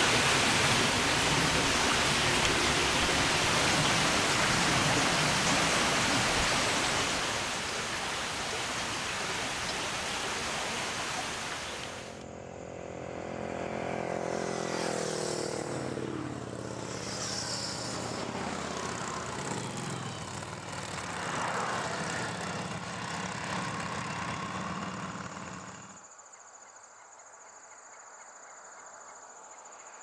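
A loud, steady rushing hiss cuts off abruptly about twelve seconds in. A motorcycle then passes on the road, its engine note falling in pitch as it goes by. Near the end it turns quieter, with a steady high-pitched insect trill.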